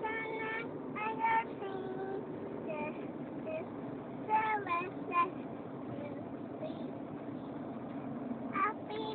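A toddler singing in short, broken snatches of a tune inside a car, over the steady hum of the car on the road.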